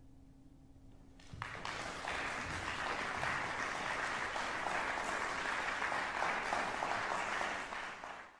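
A last low note of the wind quintet fades away. About a second and a half in, audience applause breaks out and goes on steadily until it cuts off suddenly at the end.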